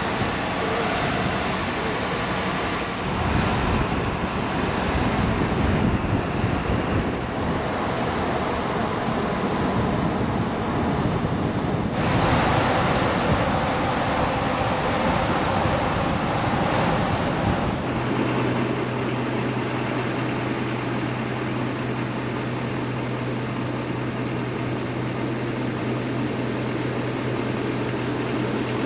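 Wind and road noise of a car moving along a road, a steady rushing. About two-thirds of the way in it changes abruptly to a steady low hum with a faint high whine above it.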